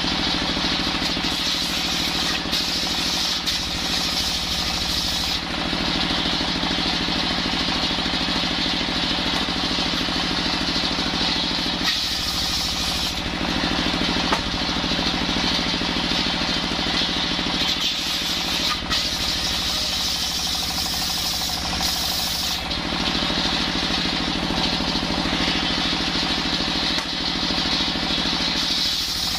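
Single-cylinder horizontal diesel engine running steadily with an even low pulse, belt-driving a circular saw bench. The spinning blade cuts through coconut wood in the first few seconds, adding a high hiss.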